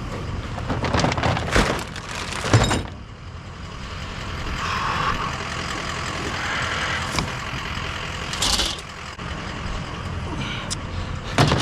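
Clatters and knocks of scrap items being handled, several in quick succession in the first few seconds and a few more later, over the steady noise of a vehicle.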